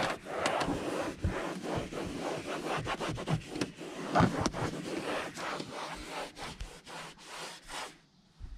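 Microfiber towel rubbing across a plastic truck dashboard in quick back-and-forth strokes, wiping off spray-on interior detailer. The wiping stops near the end.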